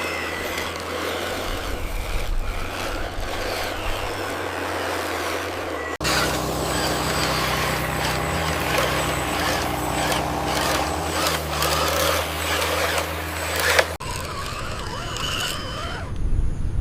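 Small electric motors of homemade remote-control cardboard construction vehicles running, with a steady low hum and a noisy rattle over it. The sound changes abruptly twice, about six and fourteen seconds in.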